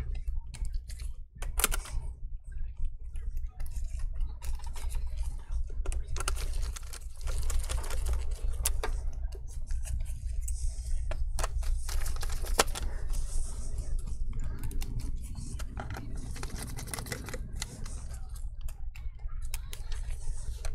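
Irregular small clicks, taps and scrapes of a precision screwdriver and gloved fingers driving tiny screws into a laptop battery's mounts inside the opened case, over a steady low hum.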